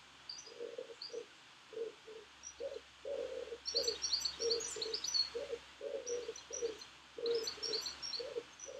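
A pigeon cooing in a steady run of short low notes, two or three a second, with small birds chirping high above it in bursts from about three and a half seconds in and again near the end.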